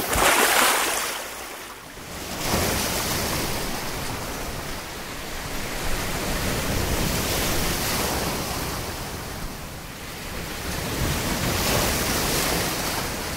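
Sea surf: waves breaking and washing in, a steady rush that swells and eases every few seconds.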